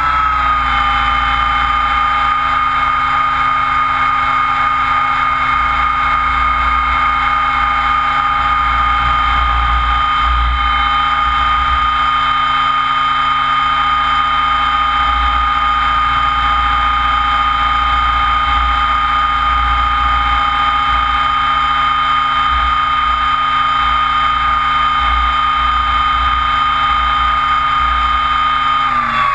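Mikado Logo 600 SX electric RC helicopter heard from a camera on its own frame: a steady high motor-and-gear whine with the rotor turning. Its pitch dips slightly about a second in, then holds, and begins to fall at the very end as the rotor starts to spool down.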